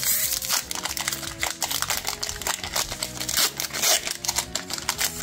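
Foil wrapper of a Pokémon booster pack crinkling and crackling as it is torn open by hand, with the crackle dying down near the end.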